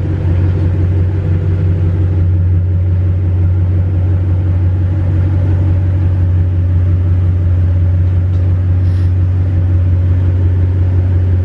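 The 2012 Ram 1500's 5.7-litre Hemi V8 idling steadily with a low, even hum.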